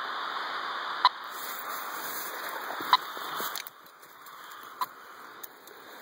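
Radio-telemetry receiver's speaker giving short beeps about every two seconds over a hiss of static: the pulsed signal of a rattlesnake's implanted radio transmitter, which is close by. The hiss drops to a fainter level about halfway through, and the later beeps are fainter too.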